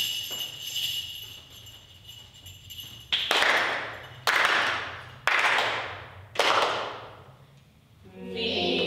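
Jingle bells ringing and fading over the first couple of seconds. Then four sharp strikes on hand percussion, about a second apart, each ringing out briefly. Another pitched instrument sound begins near the end.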